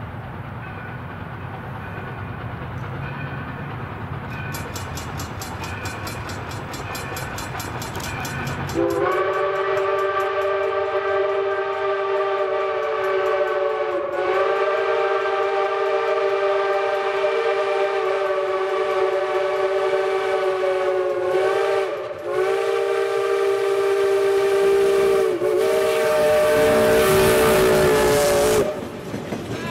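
Black River & Western 2-8-0 No. 60 steam locomotive's chime whistle blowing a steady multi-note chord in several long blasts with brief breaks as the train approaches, typical of a whistle for a grade crossing. Near the end the locomotive passes close by with a loud rush of noise.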